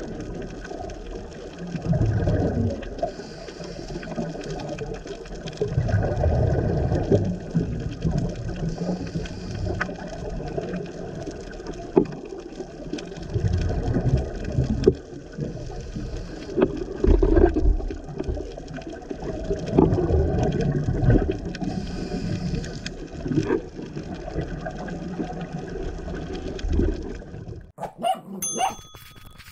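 Underwater scuba breathing: a regulator's bubbling exhaust and breath noise swelling and fading every few seconds, with fizzing bubble streams. Near the end it cuts off and a few short chime tones ring.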